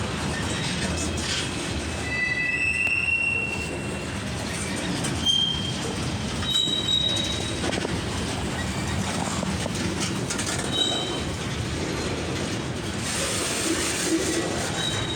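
Long freight train rolling past, a steady rumble of steel wheels on rail with short high-pitched wheel squeals several times.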